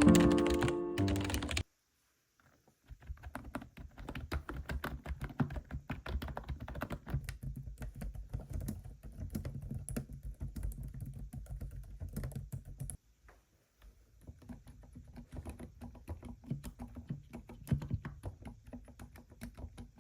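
Fast, continuous typing on an EWEADN keyboard, a dense run of key clicks that stops for about a second near the middle and then resumes. It is preceded by a short stretch of music that cuts off about one and a half seconds in, followed by a moment of quiet.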